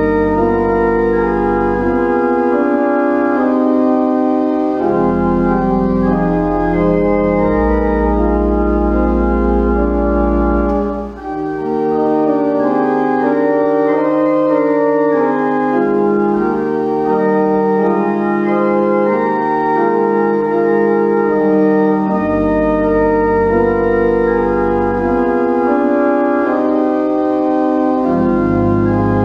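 Pipe organ playing a prelude in held chords, with deep pedal bass notes that drop out and come back several times. The music thins briefly about eleven seconds in, at a break between phrases.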